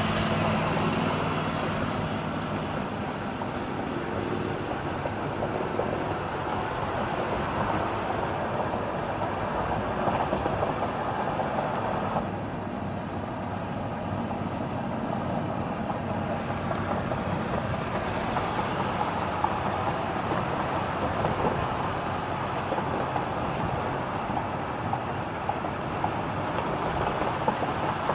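A pack of motorcycles and highway traffic heard from a moving vehicle: a steady rush of engine, tyre and wind noise.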